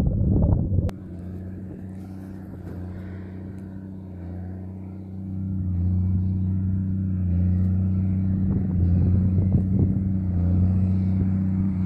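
Wind buffeting the microphone for about the first second, then an abrupt cut to a tractor engine running steadily with a low drone, growing louder about five seconds in.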